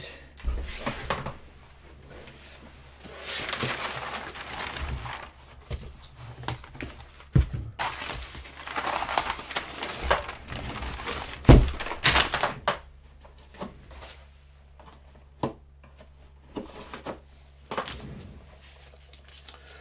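Hands working at a workbench: two longer stretches of rustling and crinkling, with several sharp knocks of things being picked up and set down, the loudest about two-thirds of the way through.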